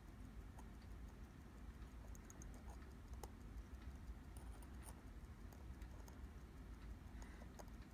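Faint, irregular small clicks of steel tweezers working a tiny screw into a watch movement, over quiet room hum.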